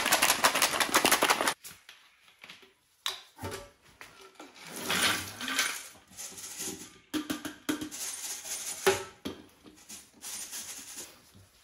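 Small metal bike parts rattled and shaken in a metal mesh kitchen sieve over a stainless steel sink while being rinsed, with liquid splashing. The rattling comes in bursts and is heaviest in the first second and a half.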